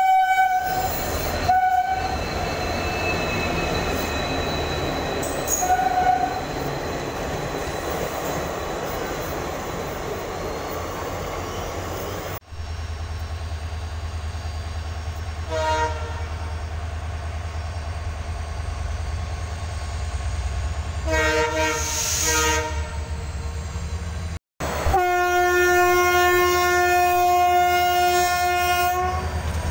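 Indian Railways diesel locomotive horns sounding repeatedly over a steady low engine rumble: several short blasts, then one long blast of about four seconds near the end.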